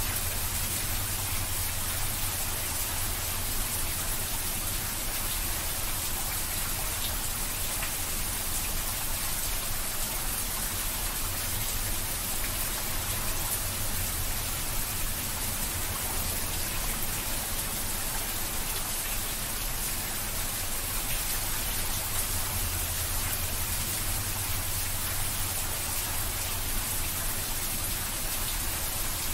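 Steady rain falling without a break: an even hiss of drops over a low steady rumble.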